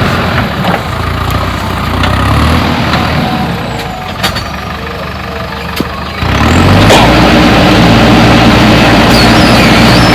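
JCB 3DX backhoe loader's diesel engine running, easing off for a couple of seconds with a few metallic clicks, then revving up sharply about six seconds in and holding at the higher speed.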